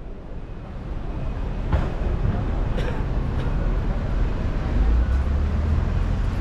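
City street ambience: a steady low rumble of traffic with faint voices of passers-by and a couple of sharp clicks, fading in over the first two seconds.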